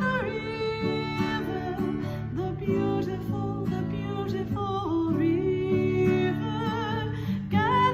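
A song with acoustic guitar accompaniment and a singing voice.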